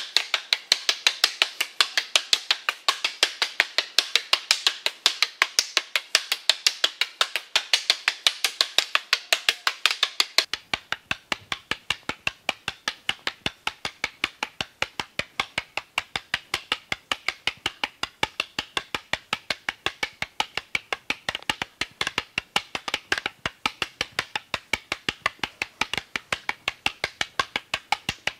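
Rattan Eskrima sticks clacking against each other in a fast, steady rhythm of sharp wooden knocks, several strikes a second, as in a partner drill. About ten seconds in the knocks turn fuller and deeper.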